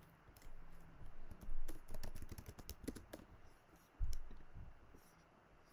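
Typing on a computer keyboard: a quick run of key clicks, then a single heavier key press about four seconds in.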